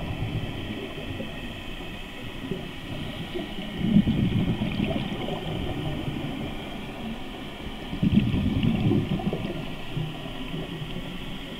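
Scuba diver breathing through a regulator underwater: bubbly rushes of exhaled air come twice, about four seconds apart.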